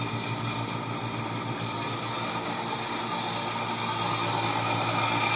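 Baldor electric motor running on only about 17 volts (roughly 8.5 watts) fed through a Variac: a steady low hum with a hiss, growing a little louder near the end. At this very low power it still runs smoothly.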